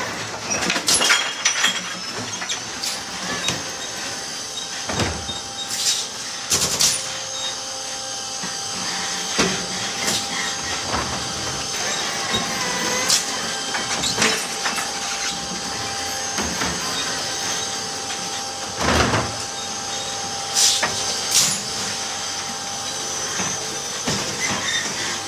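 Electric refuse truck's automated side-loader arm at work: a steady electric whine, with tones that glide up and down as the arm lifts and lowers, and repeated clunks and bangs as recycling carts are gripped, tipped into the hopper and set down.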